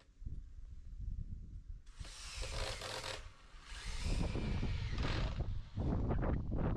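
Cordless drill driving screws into a timber frame, in three short runs, the first and longest about two seconds in.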